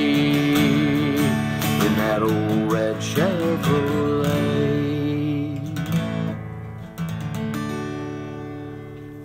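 Closing bars of a song on acoustic guitar: strummed chords, then a final chord left ringing as the music fades out.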